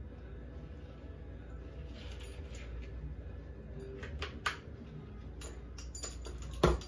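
Plastic lid being fitted and pressed onto a Hamilton Beach blender jar: a few light clicks, then one louder knock near the end. The blender motor is not running.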